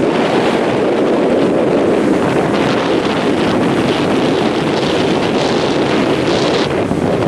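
Steady rush of sea surf mixed with wind noise on the microphone.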